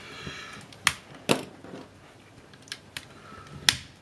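A screwdriver turning a self-tapping screw out of a plastic camera housing: a short squeak as the screw turns at the start, then several sharp clicks and taps of tool and plastic, the loudest near the end. The screws are stiff to pull from their holes.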